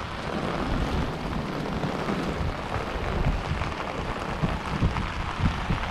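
Heavy tropical-storm rain falling in a steady hiss, with wind gusts buffeting the microphone in low, irregular rumbles.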